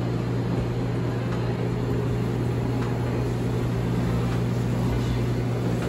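Steady low mechanical hum with an even rushing hiss, the constant drone of a restaurant's running equipment such as ventilation and refrigeration.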